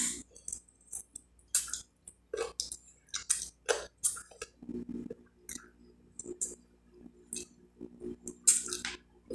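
Wet mouth sounds of eating by hand: lip smacks and finger-sucking while chewing stewed chicken, a string of short sharp smacks at irregular intervals with quiet gaps between.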